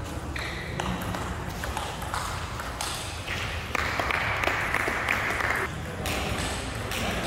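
Table tennis ball clicking off the rackets and table in a rally, with voices in the hall. A louder rush of noise comes about four seconds in.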